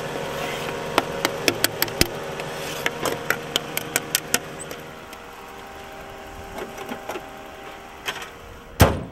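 A knife taps and scrapes chopped onions off a cutting board into a metal pan on the engine, a quick run of sharp clicks, with the car's engine idling underneath. Near the end the hood is slammed shut, the loudest sound.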